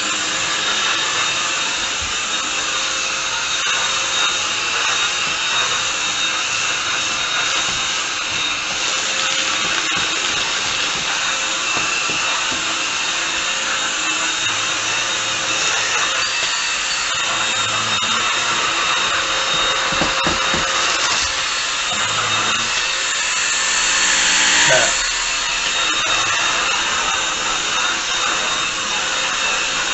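Bush 25.2V cordless stick vacuum cleaner running, its 150W DC motor and motorised brush head giving a steady high-pitched whine while vacuuming the floor. It grows briefly louder about five seconds before the end.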